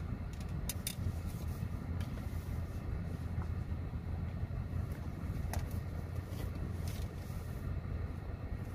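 Steady low rumble of a car, heard inside the cabin, with a few small clicks and rustles of handling.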